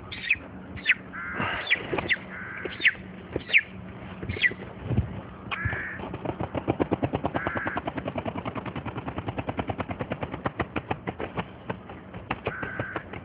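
A broiler chicken squawking several times as it is held, then its wings flapping in a fast, even rhythm for about six seconds from roughly six seconds in: the reflex flapping of a bird whose neck has just been broken.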